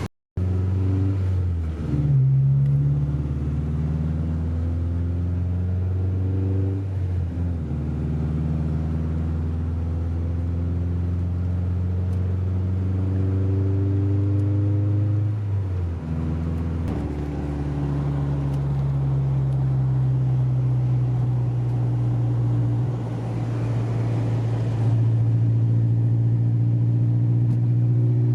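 Car engine running under load while driving, its pitch climbing slowly and then dropping at gear changes about 7 and 16 seconds in.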